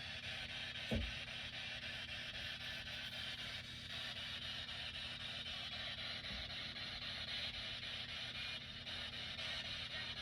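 Steady low hum and hiss of a quiet room, with one soft thump about a second in.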